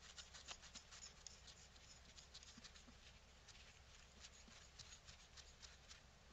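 Very faint, scattered clicks and rubbing as gloved hands turn a brass compression nut onto a brass compression fitting on copper pipe.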